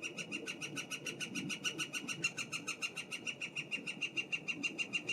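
Woodpecker calling: a long, even series of rapid notes, about eight a second.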